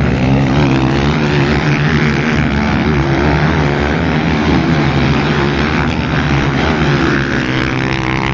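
Several motocross dirt bikes running hard together as they ride over the jumps. Their overlapping engine notes rise and fall continuously.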